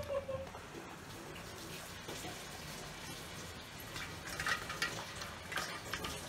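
A dog lapping water from a stainless-steel bowl. Quick wet laps start about four seconds in, at roughly four to five a second.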